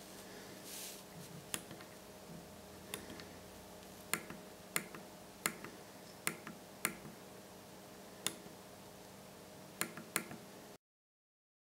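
Small push buttons on a Lamptron FC-8 fan controller clicking as they are pressed, about ten sharp single clicks at irregular intervals. Each press steps an LED through its colours. A faint steady hum runs underneath, and the sound cuts out completely near the end.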